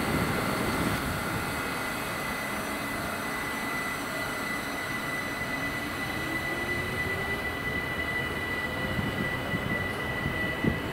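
ÖBB Talent electric multiple unit pulling out of the station, a steady high whine running throughout, with a lower motor whine rising in pitch about halfway through as the train gathers speed.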